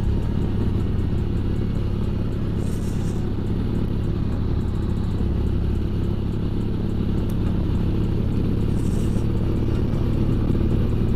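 Triumph T100 Bonneville sidecar outfit's parallel-twin engine running at a steady, even pace while under way, with road and rushing-air noise.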